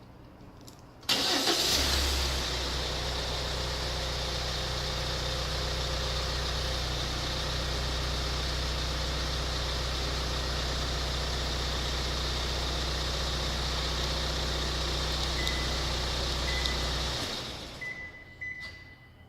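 Kia All New Sorento's engine cranking and catching about a second in, remote-started with the factory key fob through an aftermarket alarm, then idling steadily until it shuts off near the end. A few short high beeps near the end.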